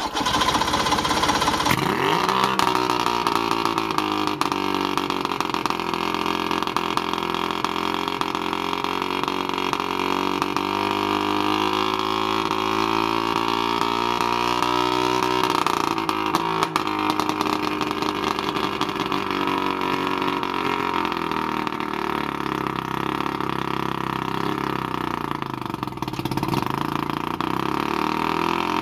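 Mercury 90 hp outboard motor running. Its speed comes up in the first couple of seconds, then holds steady, shifting slightly about halfway through.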